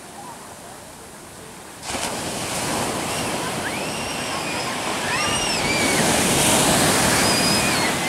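Ocean surf breaking on a sandy beach: a soft wash of foam, then from about two seconds in louder breaking waves that build toward the end. A few high-pitched shouting voices rise over the surf in the second half.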